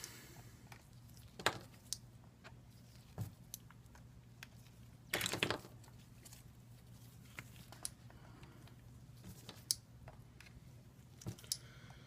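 Scattered clicks and handling clatter of clamps being set around the edges of an iPad 2 to hold its freshly glued screen, with a longer rattle about five seconds in. A low steady hum runs underneath.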